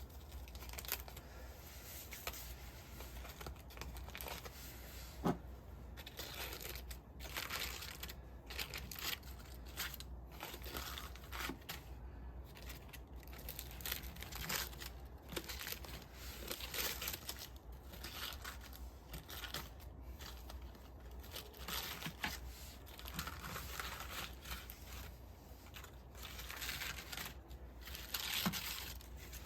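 Irregular rustling and crinkling handling noises, with a few sharp clicks.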